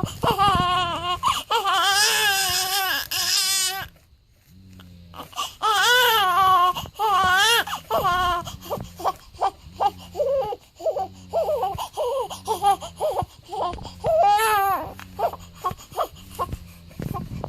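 Newborn baby crying in high, wavering wails. The crying breaks off briefly about four seconds in, then comes back as shorter cries and whimpers, with one more long wail near the end.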